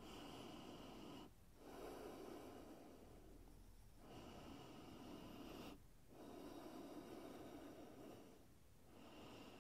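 Faint, slow, audible human breathing, breaths in and out alternating, each lasting about one and a half to two and a half seconds.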